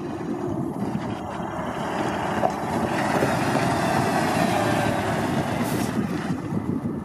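MAN fire truck's diesel engine and tyres as it drives slowly past, growing louder as it comes close about four seconds in and then easing as it moves away. Wind on the microphone.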